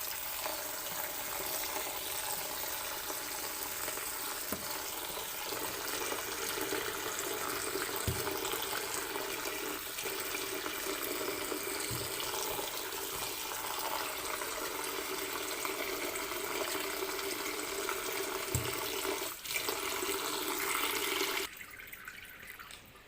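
Kitchen tap running steadily into a sink while soaked mushrooms are washed under it, with a few faint knocks; the water stops near the end.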